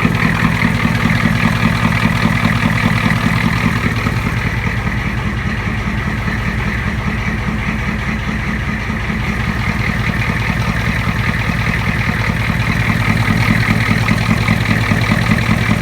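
1985 Ford F350 truck engine idling through straight dual exhausts with no mufflers, an even low pulsing that runs steadily. The owner, who has let it sit a while, is listening for whether this is an engine knock.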